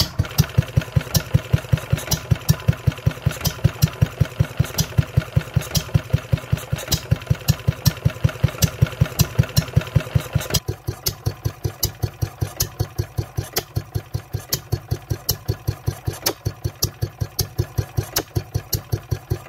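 Wolseley WD8 single-cylinder air-cooled petrol stationary engine running steadily at idle, an even firing beat of about four to five a second. The clatter under the beat quietens about halfway through while the beat goes on unchanged.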